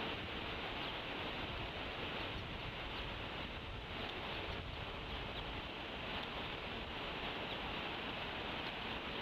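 Steady outdoor hiss on the nest microphone with faint, scattered high peeps: bald eagle chicks softly begging while being fed.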